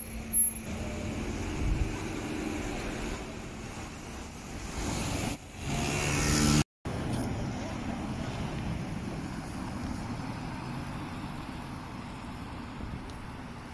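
Road traffic on a wet street: cars pulling away with engine and tyre noise, an engine note rising shortly before the sound cuts out briefly about halfway through, then steady traffic noise.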